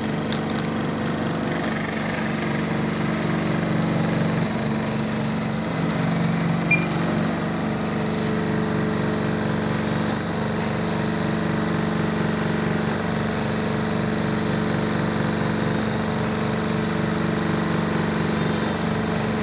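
Home oxygen concentrator running: its compressor gives a steady mechanical hum with a fast, even pulsing.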